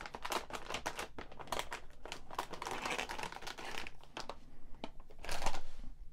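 Metallised anti-static bag crinkling and crackling as the motherboard inside it is handled and lifted out of its box. The crinkling is dense for about four seconds, then thins out, with one louder rustle near the end.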